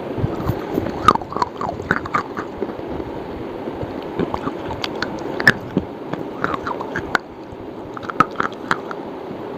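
A person biting and chewing hard slate (slate pencil or slate bar). It makes sharp, irregular crunching clicks.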